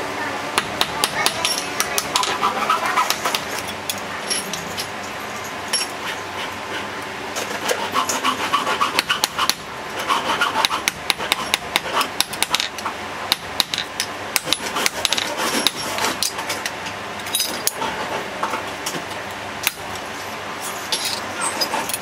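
Small hand hammer tapping on metal padlock parts and pins against a steel block, in runs of quick sharp metallic strikes with short pauses between them.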